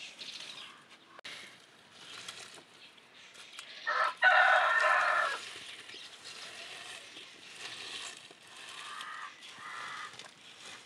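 A rooster crowing once, about four seconds in: a short first note, then a longer held one. Fainter bird calls follow near the end.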